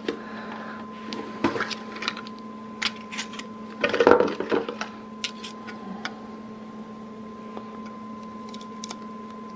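Packaging and accessories being handled during an iPad 2 unboxing: scattered clicks and short rustles of plastic and cardboard, with a louder burst of handling about four seconds in, over a steady faint hum.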